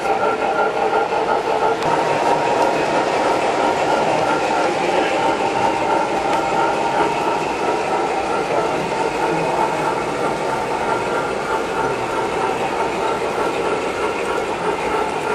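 MTH model DM&IR 2-8-8-4 Yellowstone steam locomotive running with a long string of coal hopper cars: a steady rolling rumble of model train wheels on the track.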